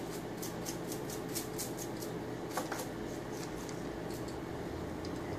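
Light, quick ticking from small hand tools working on a hair clipper's housing, about five ticks a second, then slower, with a sharper double knock about two and a half seconds in, over a steady low hum.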